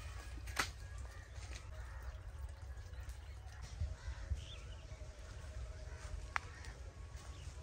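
Outdoor rural ambience: a steady low rumble, a bird calling briefly about midway, and a few sharp knocks of firewood logs and branches being handled, one just after the start and one near the end.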